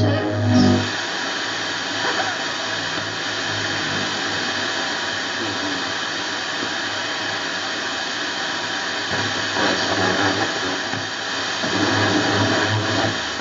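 FM radio tuner playing steady static hiss through its speaker while tuned off-station, with faint programme sound coming through the noise near the end.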